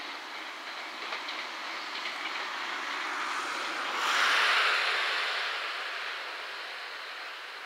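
A JR West 227 series electric train running on the rails as it draws away, a steady rush of wheel-and-rail noise with a few faint clicks from the rail joints. It swells briefly about four seconds in, then fades.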